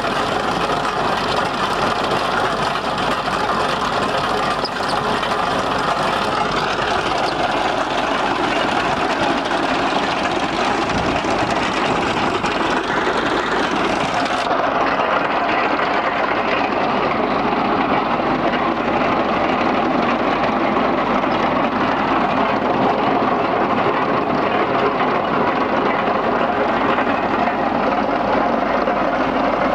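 Tractor engine running steadily, driving a PTO-powered trencher.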